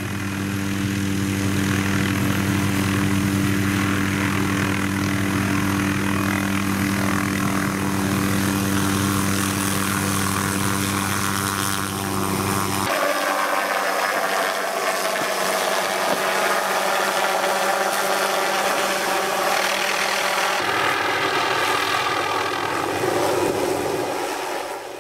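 MD 500 helicopter hovering close overhead: steady rotor and turbine noise with a low hum. About halfway through the low hum drops away suddenly and a higher, brighter whine carries on.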